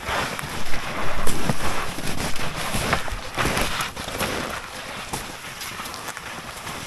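Wide hunting skis sliding and crunching over dry snow as people ski across a field, with irregular scrapes, heaviest in the first few seconds and then a steadier, quieter swish.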